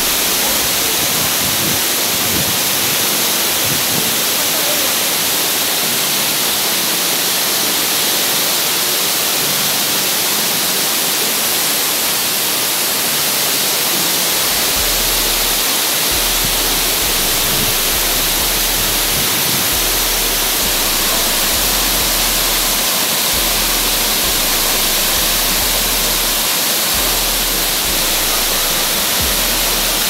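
Waterfall cascading over rocks: a steady, loud hissing rush of falling water that holds even throughout.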